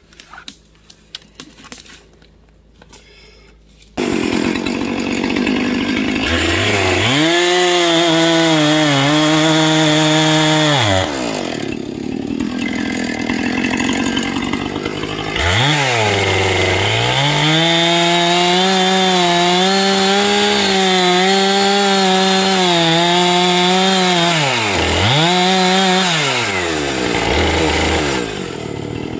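A two-stroke chainsaw comes in loudly about four seconds in and bucks a downed conifer trunk. It revs up to full throttle for two long cuts, dropping back to a lower idle between them and again near the end.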